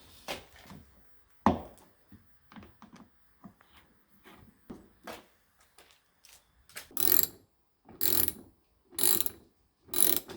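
Hand ratcheting tool driving a bumper trim screw: small clicks and a sharp knock, then from about two-thirds of the way in a run of ratcheting strokes about once a second.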